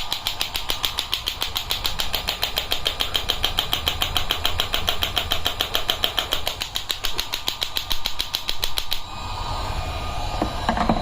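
Electromagnetic shockwave therapy handpiece firing, a rapid, even train of sharp clicks, several a second. The clicking stops abruptly about nine seconds in, leaving a steady hum.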